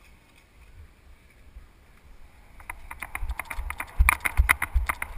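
Running footsteps on a muddy track, heard close up as quick, regular thuds that start about two and a half seconds in and get louder.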